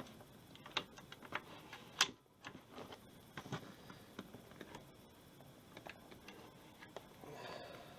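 Quiet, scattered light clicks and small knocks of objects being handled, with one sharper click about two seconds in and a soft rustle near the end.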